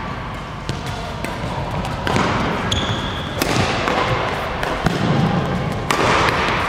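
Badminton rally: sharp racket strikes on the shuttlecock about every second, with court shoes squeaking and scuffing on the court floor.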